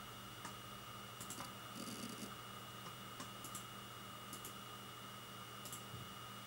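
Samsung SpinPoint HD161HJ 160 GB 7200 rpm hard drive running at speed with a steady low hum and a thin whine, its heads seeking with scattered irregular clicks and short bursts of ticking chatter as it reads.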